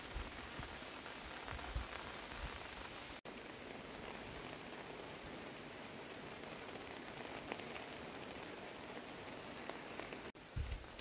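Steady rain falling on a wet paved road, an even hiss with faint individual drop ticks.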